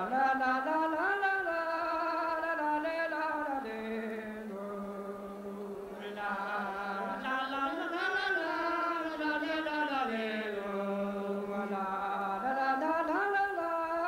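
Three men's voices singing Breton kan ha diskan unaccompanied, a cappella: a repeating phrase with long held notes that rises and falls, the line passing on without a break.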